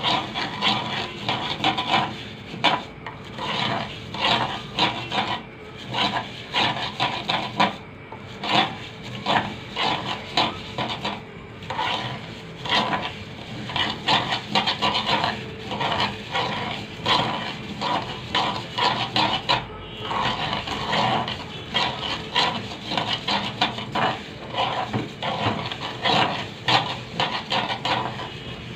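A spoon stirring and scraping vermicelli as it fries in ghee and oil in a pot, in quick, uneven strokes several times a second.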